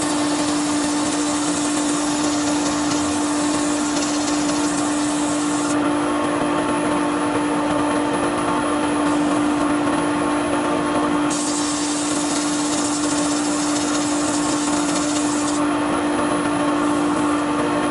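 Wood lathe running with a steady hum while sandpaper is held against a spinning wooden pen blank, adding a hiss. The hiss stops about six seconds in, comes back around eleven seconds, and stops again near the end, leaving only the lathe.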